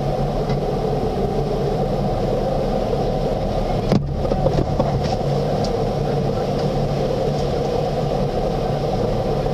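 Tunnel car wash heard from inside the car: water spray and spinning cloth brushes beating on the windshield and body over a steady hum of the wash machinery, with a few sharp knocks about four to five seconds in.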